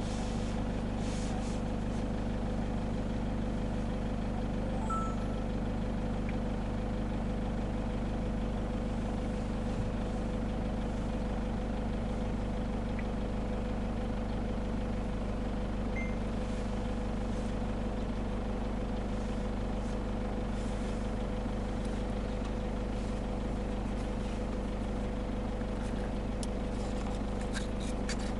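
A vehicle engine idling steadily, a constant low hum with an even drone above it.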